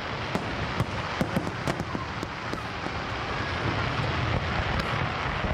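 Aerial firework shells bursting in a dense, continuous display, with many sharp cracks scattered over a steady low booming din.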